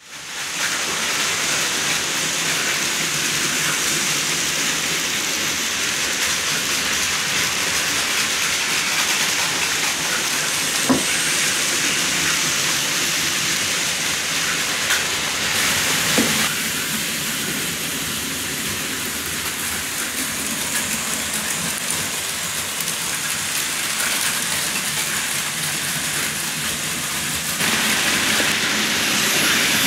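Plarail Advance toy trains and KATO N-gauge model trains running: a steady whirring hiss of small electric motors and wheels rolling on the track, with a couple of light clicks. The sound changes abruptly twice, once about halfway through and again near the end.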